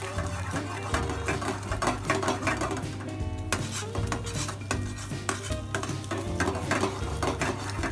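A spatula scraping and tapping against a frying pan as a beaten-egg omelette cooks in hot oil, with light sizzling. Background music plays underneath.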